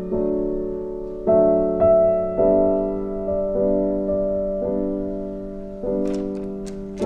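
Slow, gentle piano background music, a new note or chord struck about once a second and left to ring. Near the end, a few faint clicks of plastic felt-tip markers being handled.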